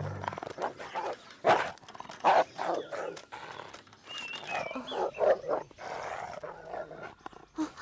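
Several dogs barking in short, irregular bursts. A brief high warbling tone comes about four seconds in.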